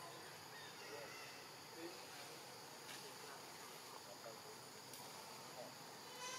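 Faint, steady chorus of forest insects, a constant high-pitched drone, with a few faint short chirps scattered through it.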